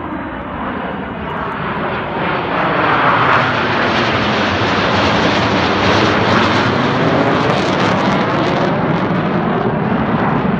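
Four Blue Angels F/A-18 jets flying over in diamond formation, their jet engines a loud rushing roar. It builds over the first few seconds and then holds.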